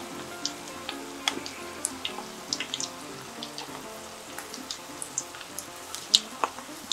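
Shrimp tempura deep-frying in hot oil in a deep wok: a steady sizzle with sharp crackling pops at irregular intervals, the loudest about six seconds in.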